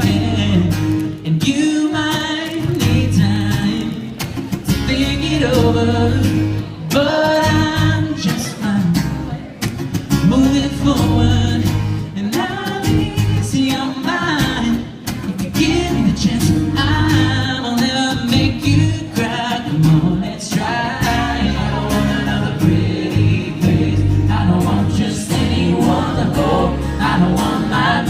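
Live pop music: a singer's voice over an amplified band with a steady bass line.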